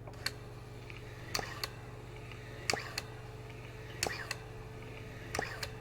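Small DC motor of an Eppendorf Transjector's cam-driven air pump running slowly on a bench supply at about 6 V: a steady low hum with a pair of light clicks about every 1.3 seconds. It is a quiet motor.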